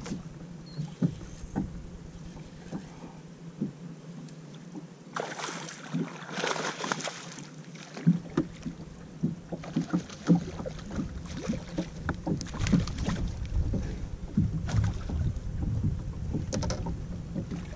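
Small waves lapping and slapping against a fishing boat's hull in short, irregular knocks, with wind on the microphone. A louder rush of noise runs for a few seconds from about five seconds in.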